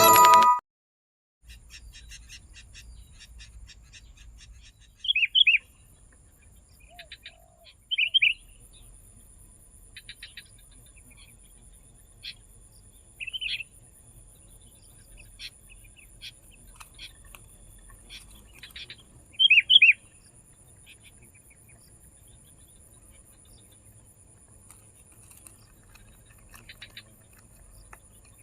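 Sooty-headed bulbul calls: four loud, short chirps spaced several seconds apart, with fainter chirps and ticks in between. A faint steady high-pitched hum runs underneath.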